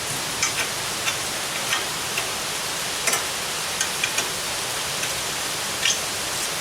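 Air compressor running with a steady hiss, with a dozen or so light scattered clicks and taps on top.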